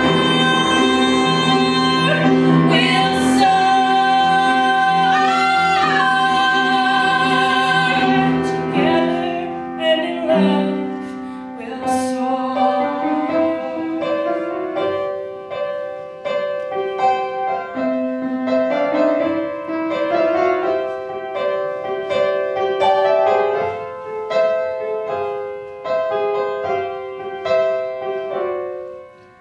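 Two women singing an original song live with instrumental accompaniment. They hold a long note with vibrato for the first several seconds; then the melody moves on over a run of short repeated accompaniment notes, fading near the end.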